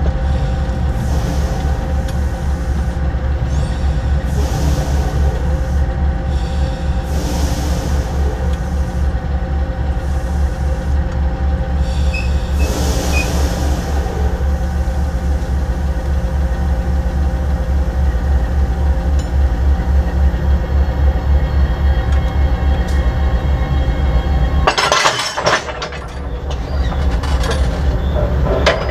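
Diesel freight locomotive running with a steady low rumble as it rolls slowly along the rails. About 25 s in, a loud metallic clash as its knuckle coupler strikes and locks onto the coupler of the freight wagon.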